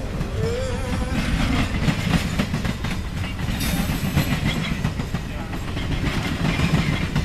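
Canadian Pacific heritage passenger cars rolling past on steel wheels: a steady low rumble with quick clicking as the wheels cross rail joints.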